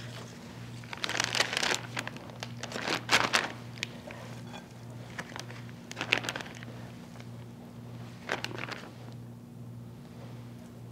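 Plastic zip-top freezer bag crinkling in several short bursts as handfuls of cooked chicken chunks are dropped into it.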